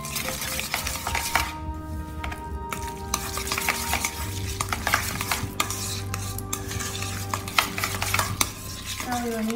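Chopsticks stirring raw minced pork and chopped celery wonton filling in a stainless steel bowl: a steady, wet, sticky scraping, with many quick clicks of the sticks against the metal.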